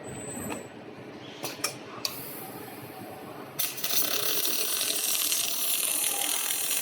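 A few sharp metallic clicks, then about three and a half seconds in a welding arc strikes and runs with a steady hissing crackle, as a robot welds a fan impeller.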